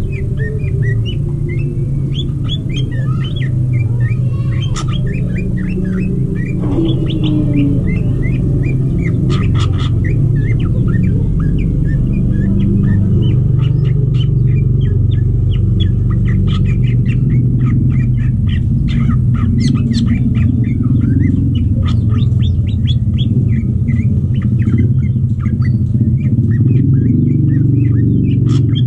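Cucak ijo (green leafbirds) giving many short, rapid chirps throughout, over a steady low hum.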